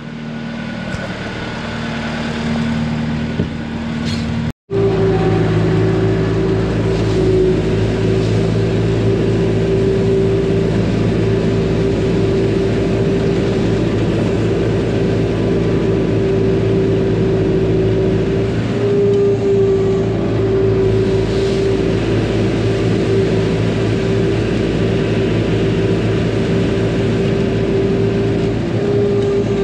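Farm machine's engine running steadily while scraping up manure. It breaks off suddenly about four and a half seconds in, then runs on louder and steady.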